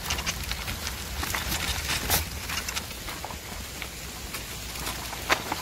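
Bicycle tyres rolling over a dirt and gravel towpath, a steady crunching noise full of small clicks and rattles over a low rumble. There is a sharper click about two seconds in and another near the end.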